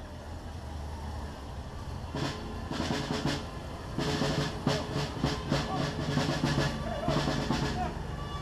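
Snare drums beating a marching cadence, starting about two seconds in and stopping near the end, over a steady low rumble of vehicle engines.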